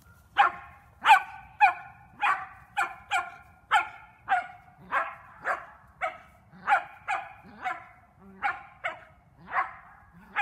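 A dog barking repeatedly and steadily: about seventeen sharp, high-pitched barks, close to two a second, starting about half a second in.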